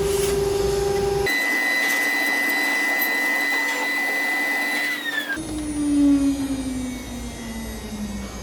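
CNC wood-carving router spindle running with a steady whine over cutting noise, the sound changing abruptly twice, about a second in and about five seconds in; in the last part the whine slides slowly down in pitch.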